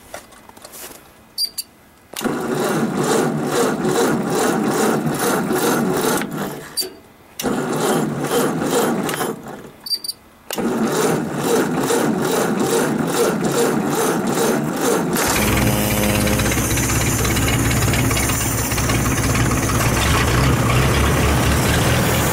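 1956 Ford tractor engine cranked slowly on its 6-volt starter in three tries, each begun with a click. It catches about 15 seconds in and settles into a steady run: a cold start on a weak battery.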